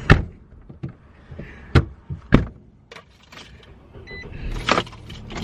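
A car door shutting, then a few scattered knocks and thumps, with a brief electronic beep about four seconds in.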